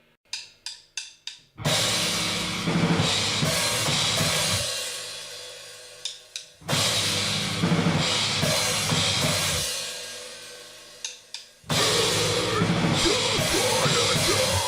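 Noisecore band recording: a count-in of four sharp clicks, then a blast of harsh, distorted noise and fast drumming that cuts off after about three seconds. Two more such blasts follow, each started by a few quick clicks.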